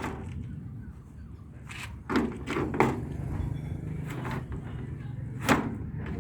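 Jeep door lock and latch being worked: a quick run of three clacks about two seconds in and a single sharper clack near the end, over a low hum.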